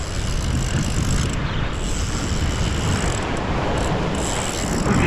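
Ocean surf washing against a rock ledge, a steady low rumble with hiss, with no pauses or sudden events.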